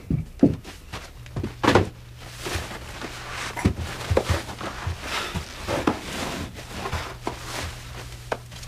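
A violent scuffle against a wooden door: a man pinned and strangled, with irregular thuds and knocks of his body against the door and floor and scuffing on carpet. A low steady hum comes in about a second in.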